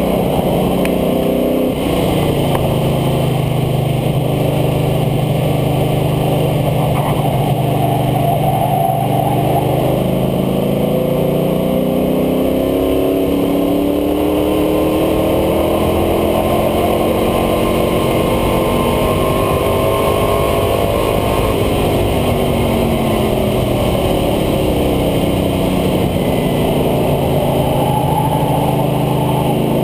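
International Harvester Scout II engine pulling hard at track speed, heard from low at the front air dam over road and wind noise. Its pitch holds steady for several seconds, drops about ten seconds in as the truck slows, then later dips and climbs again as it accelerates out of the corners.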